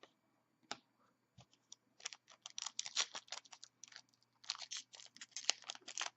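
Football trading cards and their wrapping being handled: a few isolated ticks, then from about two seconds in a dense run of light crinkles and clicks.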